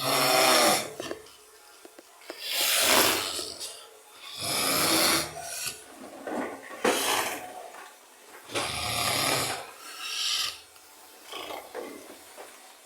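A man snoring heavily, like a pig: a long, noisy snore on each breath, every second or two, with quieter gaps between.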